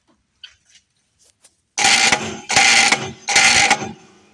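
Three loud electric buzzing zaps, each about half a second long, an electric-shock sound standing for touching a live 220-volt wire.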